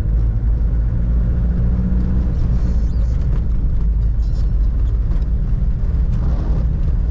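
Cabin noise of a 1997 Toyota Hilux on the move: a steady, heavy low rumble of road and tyre noise with the 3.0-litre four-cylinder 5L diesel engine running under it.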